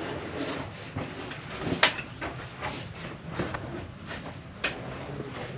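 Scattered scuffs and scrapes of shoes on sandstone as people scramble up a narrow rock slot, with a sharp click about two seconds in and another near the end.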